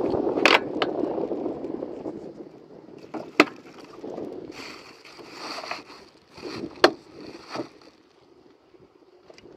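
Dishes being washed by hand in a metal basin: water sloshing, strongest in the first two seconds and then fading, then a sponge scrubbing, with a few sharp clinks of dishes against the metal.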